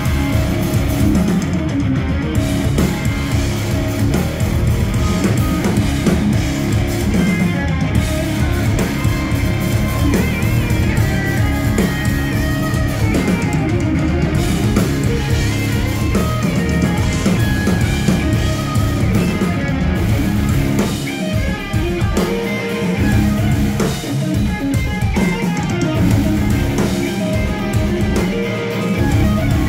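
A live instrumental progressive rock band playing: electric guitars over bass guitar and drum kit, loud and continuous.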